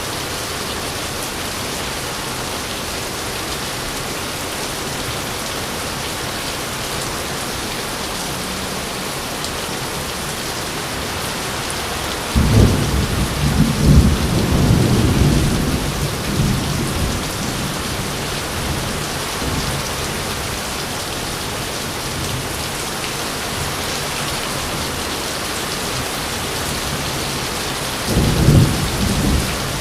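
Steady heavy rain hissing, with a sudden crack and rumble of thunder about halfway through that fades over a few seconds, and another thunderclap starting near the end.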